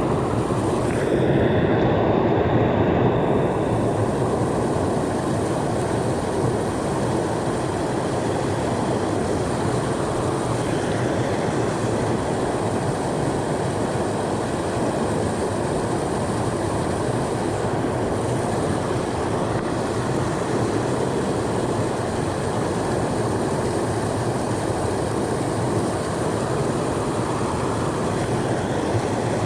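Mountain creek water rushing over rocks, a steady, unbroken noise.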